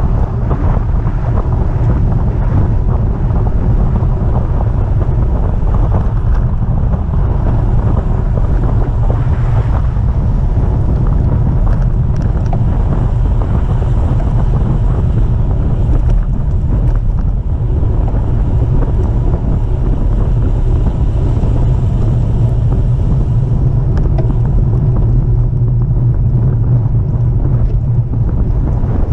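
Wind buffeting the microphone of a camera on a moving bicycle: a loud, steady low rumble of rushing air with no break.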